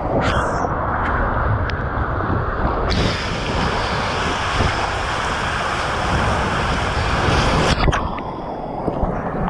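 Riding down a water slide: water rushing and sloshing around the rider, with a loud hiss of water spraying over the microphone from about three seconds in. Near the end it cuts off abruptly at the splashdown into the pool, and the sound turns duller.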